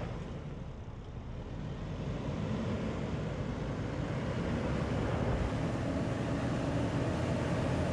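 Midsize pickup truck's engine running steadily under load as the truck crawls up a steep dirt hill, growing a little louder over the first few seconds.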